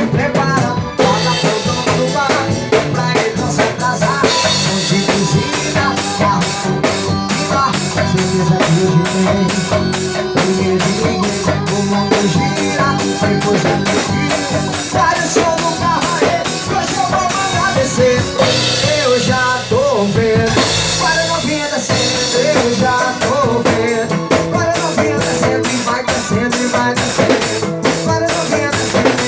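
Loud upbeat music with a driving drum-kit beat of snare and bass drum under melodic instruments.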